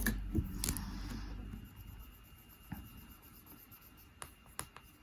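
Felt-tip marker rubbing on paper while boxes on a chart are coloured in, with a few light clicks of handling.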